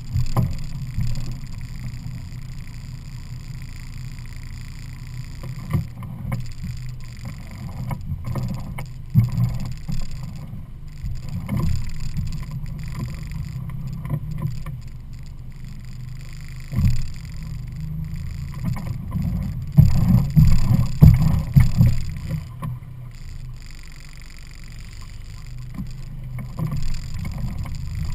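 Evinrude 50 hp E-TEC two-stroke outboard running slowly at light throttle as the boat manoeuvres, a steady low rumble. Uneven low buffeting thumps come and go over it, strongest about two-thirds of the way through.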